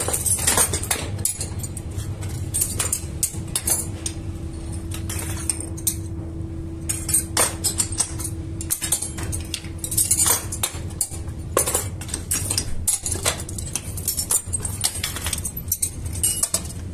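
Cast aluminium hanging hooks clinking and jangling against one another as they are handled, with sharp metallic clinks every second or so over a steady low hum.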